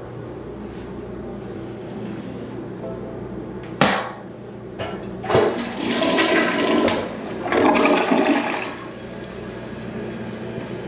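A toilet flushing: a sharp knock about four seconds in as it is triggered, then a rush of water that surges twice over about four seconds before dying away.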